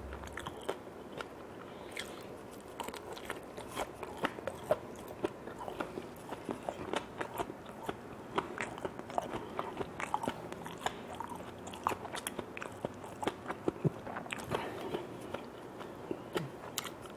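Close-up eating sounds of a person biting and chewing grilled tiger prawns by hand: a long run of crunches and short wet clicks and smacks, with no rhythm.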